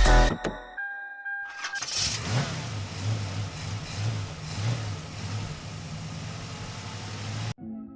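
A short electronic beep, then a Mercedes-Benz Sprinter van's engine starting and running at idle, with a steady low pulse. The sound cuts off suddenly near the end.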